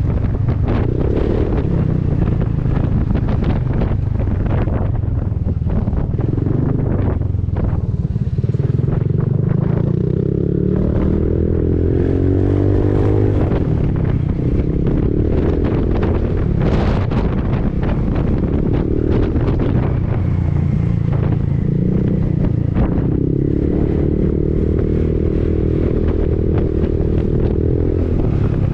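Honda Forza 300 scooter's single-cylinder engine through an Arrow aftermarket exhaust, running under way, its note rising and falling with the throttle, with wind noise on the microphone.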